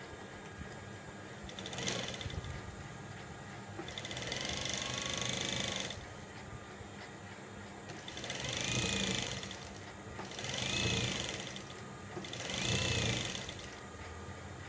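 Sewing machine stitching a folded white fabric strip into piping, running in about five short runs of a second or two each, its whine rising and falling in pitch with each run, with short pauses between runs as the fabric is repositioned.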